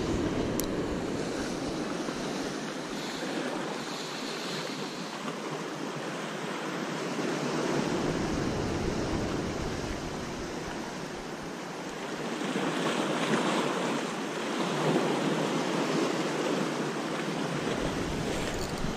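Sea swell washing and breaking against the rocks just below, swelling louder for a few seconds past the middle. Gusts of wind rumble on the microphone twice.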